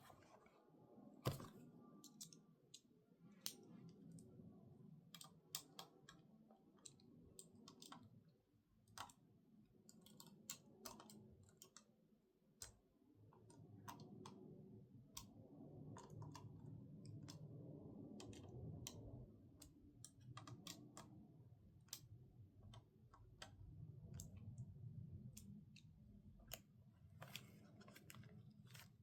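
Irregular light clicks and taps of small hard parts being handled, during work on a laptop's internals. A faint low rumble swells in the middle and again later.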